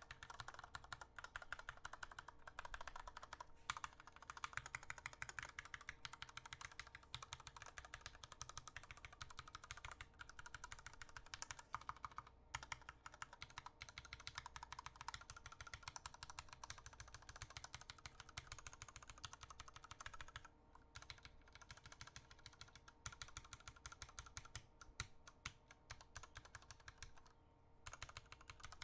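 Mechanical keyboard keys clacking quickly and continuously, like typing, with a few short pauses; the switches and stabilizers are unlubed.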